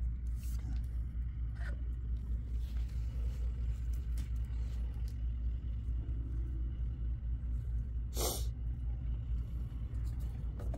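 Steady low rumble throughout, with a few soft clicks and one sharp knock about eight seconds in, as black ABS drain-pipe fittings are handled and dry-fitted.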